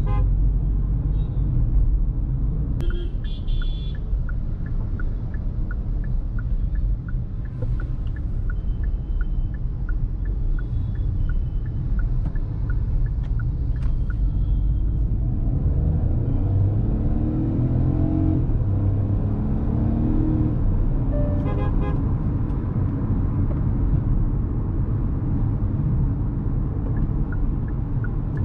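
Cabin sound of a 2023 Hyundai Venue's 1.0-litre turbo petrol three-cylinder with dual-clutch gearbox driving in city traffic: a steady engine and road rumble. A light regular ticking runs through the first half, the engine note climbs in steps in the middle as the car accelerates through the gears, and other traffic sounds short horn toots.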